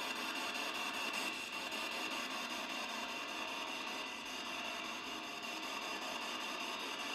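PSB7 spirit box sweeping through radio channels, played through a digital reverb pedal into a small amplifier: a steady wash of hiss and static, chopped by the channel steps several times a second.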